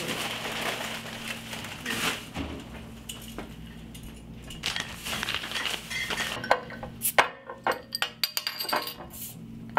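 Glass beer bottles set down one after another on a glass tabletop, a run of sharp clinks that begins about two-thirds of the way through.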